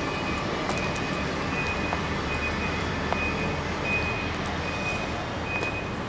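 Steady outdoor background rumble, with a short, high-pitched beep or chirp repeating a little faster than once a second.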